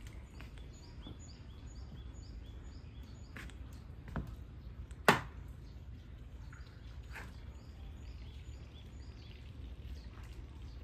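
A bird singing outdoors: a long run of short, evenly repeated high notes, about two a second, over a steady background hum. A single sharp click about five seconds in is the loudest sound, with a few softer clicks around it.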